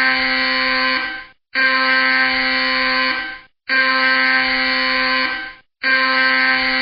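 Alarm sounding in repeated long blasts, each just under two seconds with a brief gap before the next, about one every two seconds. Each blast is a steady tone that steps slightly up in pitch just before it fades out.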